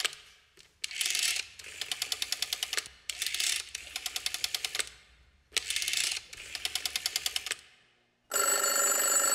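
Intro sound effect: three rattling bursts of rapid clicks, each cycle a short dense burst followed by about a second and a half of quick clicking. About a second before the end, a held tone with several steady pitches begins.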